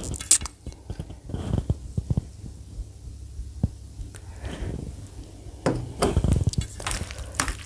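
Stainless steel bowl and plate handled while serving curry: scattered light clinks and taps, with curry poured from the bowl over rice about halfway through and a busier run of taps near the end.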